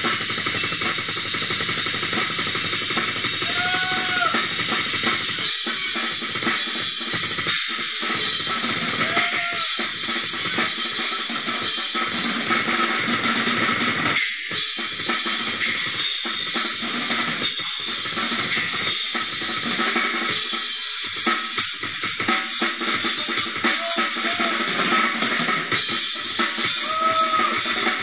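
Acoustic drum kit played in a live drum solo: bass drum and snare struck in fast, dense patterns under continuous cymbals.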